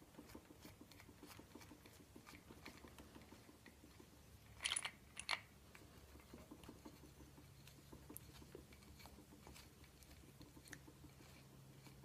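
Faint small clicks and ticks of bolts being turned out by hand from a 200-4R transmission front pump housing, with two brief louder rattles about five seconds in.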